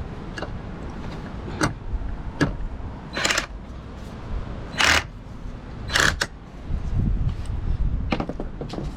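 A series of sharp knocks and clatters, irregularly spaced and loudest about three to six seconds in, from hands working on parts, over a low rumble.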